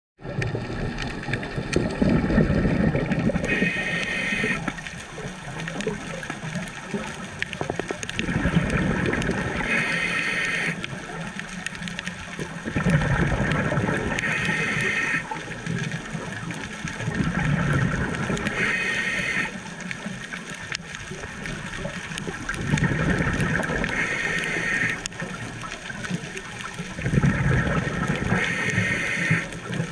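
A scuba diver's regulator breathing underwater: bubbling exhalations alternating with short hissing inhalations, about one breath every five seconds.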